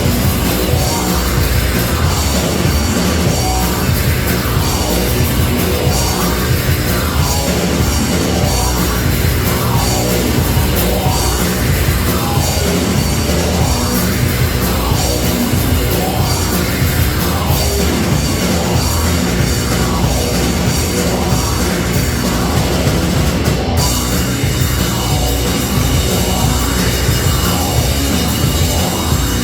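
Live rock band playing loud, heavy rock music without a break.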